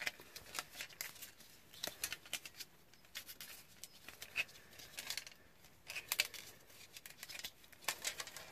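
Coiled steel recoil spring of a Honda lawnmower pull starter being wound by hand into its plastic pulley: irregular light clicks and scrapes of the metal strip against the plastic.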